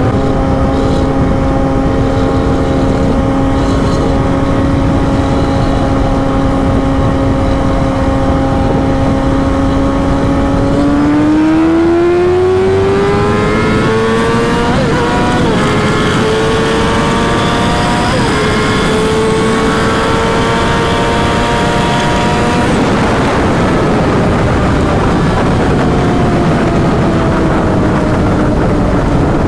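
Yamaha R6 sportbike engine holding a steady note, then revving up so its pitch climbs about a third of the way in, with brief breaks at gear changes, before it falls away as the bike slows. Steady wind noise runs underneath.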